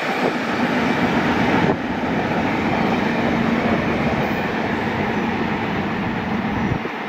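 The cars of a ballast train rolling past on the rails, a steady rumble and rattle of wheels and car bodies, easing slightly near the end as the cars move away.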